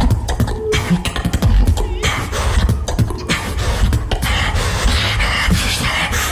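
Beatboxing: a fast run of deep bass kicks and percussive mouth sounds. From about two seconds in, a hissing layer of vocal effects sits over it.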